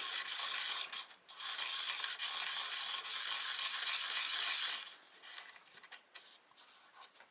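A square carbide cutter insert is rubbed in rounds on the wetted 300-grit side of a diamond sharpening card, making a steady gritty scraping. The scraping breaks off briefly about a second in and stops just before five seconds. A few faint clicks follow.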